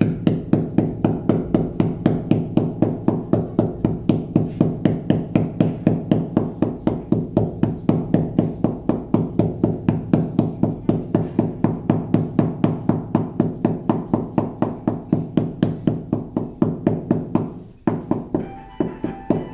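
Rubber mallet tapping ceramic floor tiles down into a wet mortar bed, a steady run of dull knocks at about three to four a second. The tapping breaks off briefly near the end, then a few more knocks follow.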